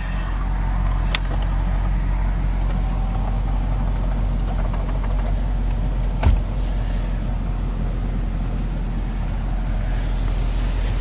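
Supercharged 6.2-litre V8 of a Cadillac CTS-V idling steadily, heard from inside the cabin, with a sharp click about a second in and a short thump about six seconds in.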